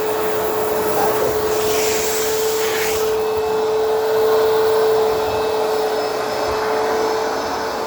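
Backpack vacuum cleaner running steadily, its motor giving a constant whine over the rush of air. About two seconds in, a higher hiss of air at the nozzle rises for about a second and then cuts off sharply.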